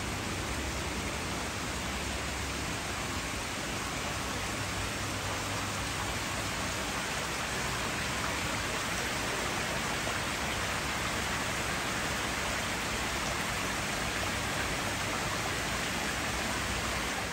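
Water pouring steadily over a pond-outlet weir into a koi pond, a continuous splashing rush.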